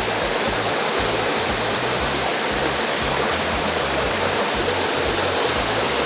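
Steady rush of a swollen forest stream flowing fast over rocks and across the stone-lined trail. The water is running high after rain.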